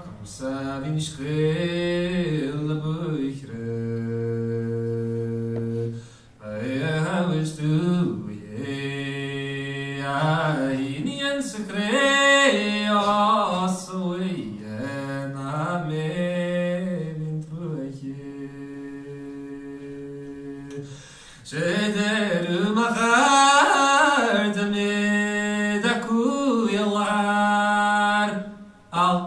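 A solo male voice singing an Irish-language song unaccompanied, with long held notes and ornamented turns between them. He breaks off briefly about six seconds in and again about two-thirds of the way through.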